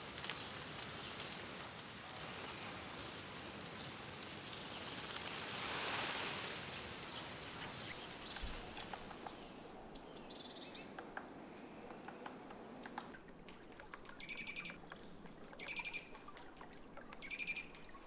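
A flock of Bohemian waxwings giving high, thin trilling calls without a break for about the first half. After that comes a run of short, repeated calls from a small bird, about one a second.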